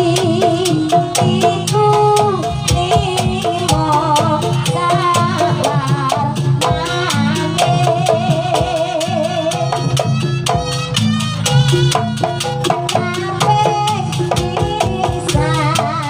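Jaranan music playing loudly: a steady drum beat under rapid sharp percussion strikes and a wavering, vibrato-laden melody line.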